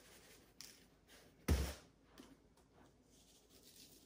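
Seasoning faintly shaken onto raw burger patties, with one short, deep thump about a second and a half in as a box of coarse salt is set down on a granite countertop.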